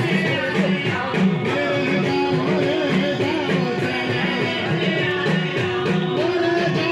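Background music with a steady beat, guitar and singing.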